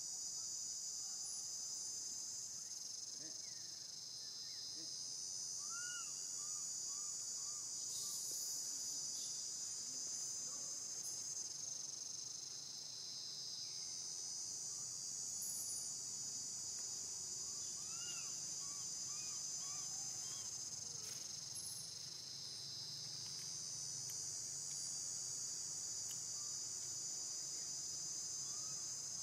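Steady chorus of insects: a dense, high, even drone that swells and eases about every nine seconds. Short runs of four or five small chirps come twice, about six and eighteen seconds in.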